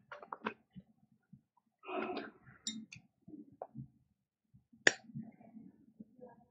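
Small handling noises of a plastic tub of special-effects skin wax: light clicks and brief rustles as it is picked up and handled, with one sharper click about five seconds in.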